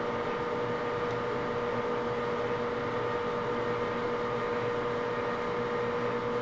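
Grizzly G4003 12x36 gearhead lathe running steadily, a constant hum with several steady pitched tones from the spinning headstock.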